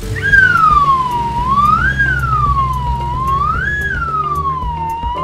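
Police siren sound effect in wail mode: one tone sliding slowly down and back up, about three cycles, over background music.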